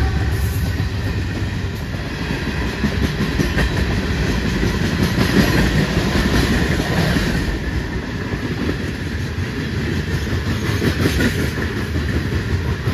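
Freight cars of a passing train (tank cars, then covered hoppers) rolling by close up: a steady rumble of steel wheels on the rails, broken by many short clicks.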